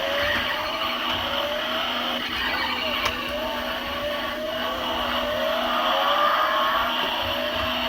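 A car-engine-like whine rising in pitch over and over, about two to three rises a second, over a steady low hum.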